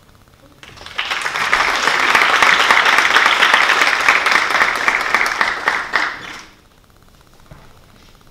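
Audience applauding. Dense clapping starts about a second in, holds for about five seconds and dies away.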